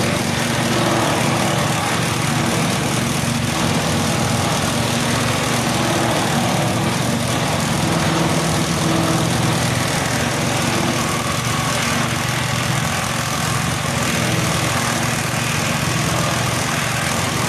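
Grass chopper (pencacah rumput) driven by a small stationary engine, running steadily under load while green grass stalks are fed in and cut to fodder.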